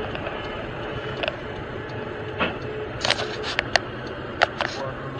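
Steady engine and road noise heard inside a car's cabin, with a run of sharp clicks and knocks between about two and a half and four and a half seconds in.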